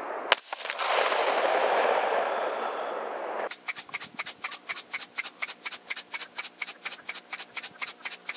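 A single 300 Blackout rifle shot just after the start, followed by about three seconds of loud rushing noise. Then a fast, regular ticking of about five pulses a second sets in and runs on.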